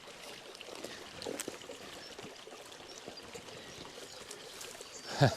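Small shallow creek trickling and babbling over stones. Near the end there is one brief, loud sound that falls in pitch.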